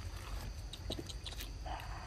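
Long-tailed macaque moving over dry leaves and rocks, with scattered short clicks and leaf rustles and a brief rough sound near the end. Insects drone steadily and high throughout, over a low rumble.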